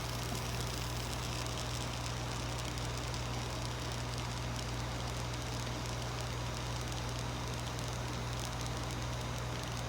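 Continuous inkjet printer running with its ink system on: a steady hum with an even hiss over it.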